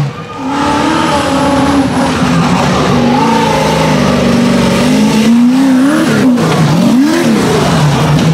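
Rock bouncer buggy's engine revving hard under load on a hill climb, its pitch swinging up and down with the throttle, with the quickest rises and falls near the end.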